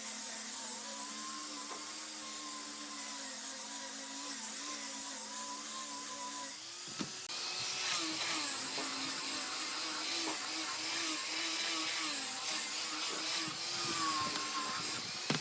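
A small electric power tool running with a steady whine whose pitch wavers slightly as it works, with a brief break about seven seconds in.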